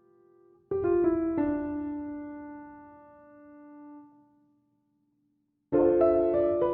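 Soft piano music: chords struck about a second in ring and slowly fade away, then after a brief silence new chords begin near the end.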